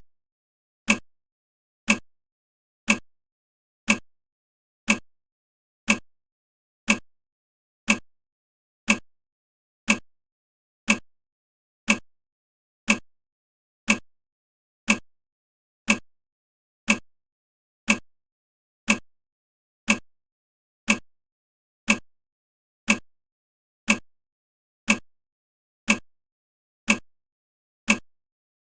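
Countdown timer ticking: one short, sharp tick every second, perfectly even, with silence between ticks.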